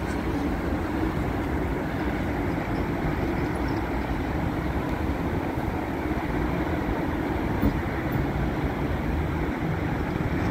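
Steady rumble and hum of a Kyiv Metro 81-717/714 series train at the platform, with no sharp sounds.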